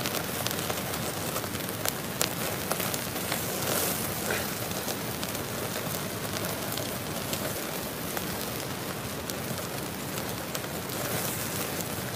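Pacific saury grilling over charcoal on a shichirin: a steady sizzle with many small, irregular crackles from the hot coals and flaring flames.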